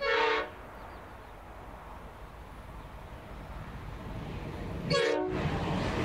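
Two short blasts of a diesel locomotive's horn, one at the start and another about five seconds later, from an approaching freight train. The rumble of the train grows louder between them.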